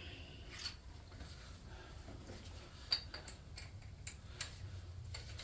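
Scattered light clicks and taps of tools and parts being handled during engine-block thread-repair setup, over a low steady hum.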